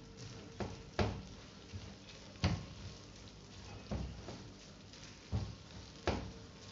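Silicone spatula stirring a thick condensed-milk and peanut-butter mixture in a nonstick frying pan. It gives a handful of sharp knocks and scrapes against the pan at uneven intervals.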